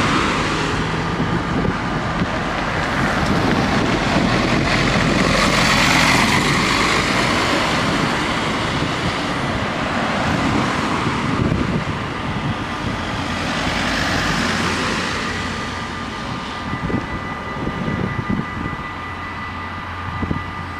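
Cars driving past with wind on the microphone; the noise swells twice, about six and fourteen seconds in. A faint steady high tone runs underneath, and a second, higher one joins in the last few seconds.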